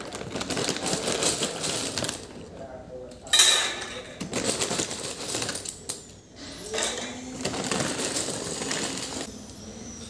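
Plastic packet of dry penne pasta crinkling and rustling as it is handled, the pasta rattling inside, in three bouts with short pauses between.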